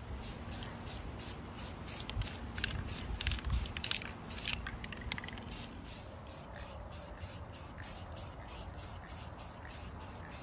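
Aerosol spray-paint can hissing in short bursts as paint and clear gloss go onto plastic ATV body panels.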